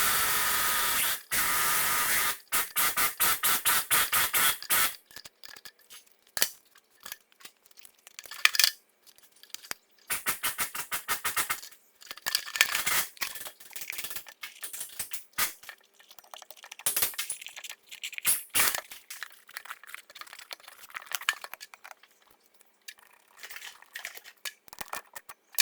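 Hand work on the metal parts of a KamAZ gearbox shift-lever linkage while its bushing is replaced. A dense hissing burst opens it, then comes a fast run of taps, then scattered metallic clicks, knocks and short rattles.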